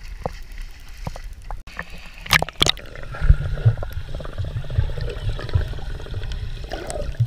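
Water splashing as the GoPro dips under the surface about two seconds in, then the low, muffled rumble and bubbling of swimmers moving through the water, heard underwater through the camera's housing.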